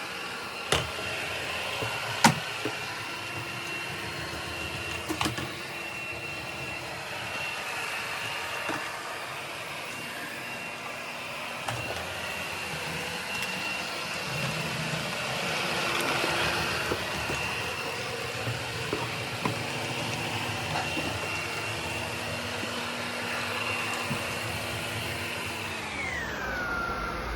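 Robot vacuum running with a steady high motor whine, with a few sharp knocks in the first several seconds. Near the end its pitch drops.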